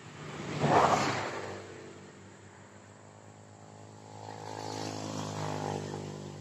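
A motor vehicle engine running steadily. It swells to a loud peak about a second in and fades, then swells again from about four seconds in and falls away near the end.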